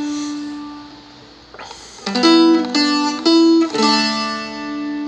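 Seagull Merlin strumstick-style dulcimer played: a ringing chord fades away, then about two seconds in a strummed chord is followed by a few single melody notes picked in turn, with the drone string ringing under them.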